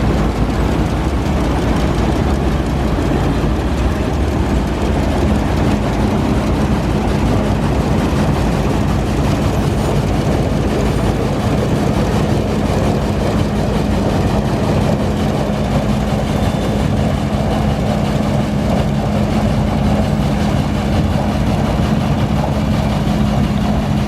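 Tractor-mounted combine harvester running steadily: a continuous engine drone with a steady low hum that grows stronger about five seconds in.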